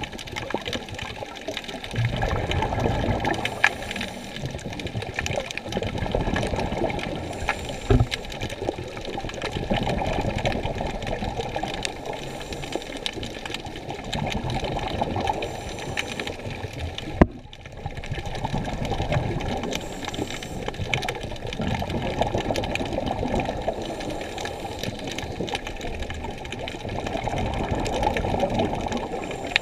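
Muffled water sloshing and rushing, as heard underwater, swelling and fading every few seconds, with a few sharp knocks.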